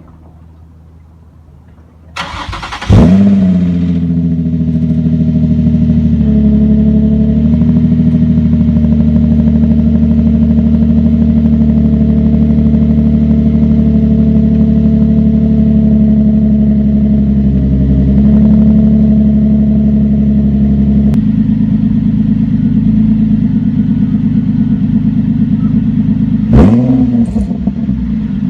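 Nissan 350Z's 3.5-litre V6, on its stock exhaust, cold-started: the starter cranks briefly about two seconds in, then the engine catches and settles into a steady cold idle. The idle note shifts about two-thirds of the way through, and a quick rev blip comes near the end.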